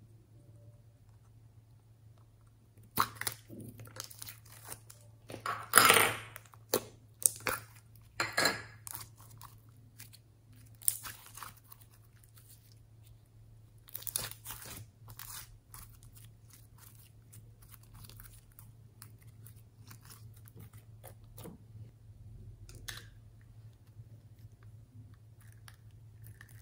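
Crackling and clicking of a small clear plastic container being gripped and twisted open by hand, in irregular bursts, loudest about six seconds in and sparse in the second half. A low steady hum runs underneath.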